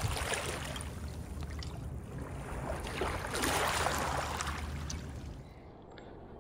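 Wind noise and the rush of river water, swelling twice, about half a second in and again from about three to five seconds in, then dropping quieter near the end.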